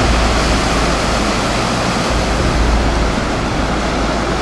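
Breaking surf and whitewater washing through the shallows: a continuous, even rush of water. Wind buffets the microphone underneath as a low rumble that swells and dips.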